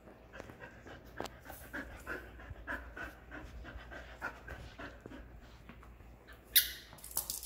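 A dog panting rapidly, about three breaths a second, out of breath from fetch and tug play. Near the end there is one short, sharp, loud noise, followed by a couple of faint clicks.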